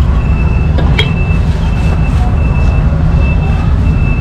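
Loud, steady low rumble of street traffic, with a thin high whine that comes and goes and two sharp knocks about a second in.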